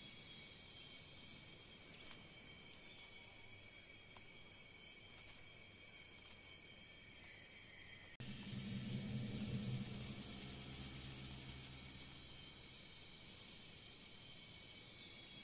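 Steady chorus of insects, several high trilling tones held without a break. About eight seconds in, a louder sound with a low hum and a fast, high, pulsing buzz comes in for about four seconds, then fades.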